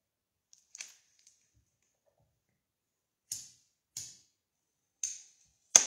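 A lighter being clicked to light a cigarette: about five short, sharp clicks spread over a few seconds, the one near the end the loudest.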